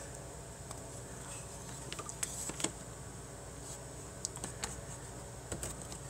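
Faint, scattered clicks and taps of a small plastic power-supply cooling fan being handled and turned over in the hands, over a steady low room hum.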